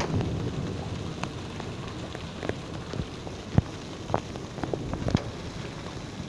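Hailstorm: a steady hiss of falling hail and rain, with irregular sharp clicks of single hailstones striking the hard ground.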